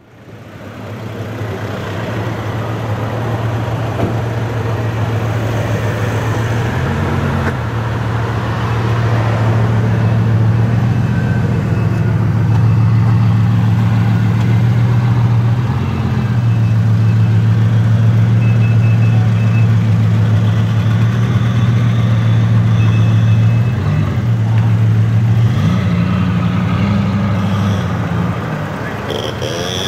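Bugatti Veyron's W16 engine running at a steady low idle, with a few brief rises in pitch as the car creeps off at walking pace.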